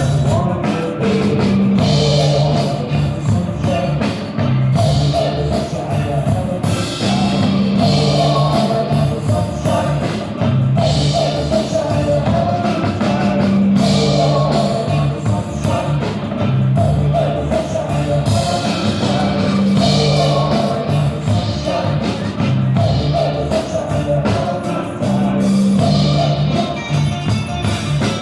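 A live band playing rock-style music, with a drum kit keeping a steady beat under a repeating bass line and singing.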